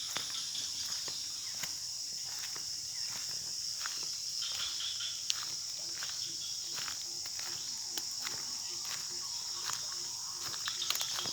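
Steady high-pitched chorus of insects, with scattered light clicks and ticks throughout.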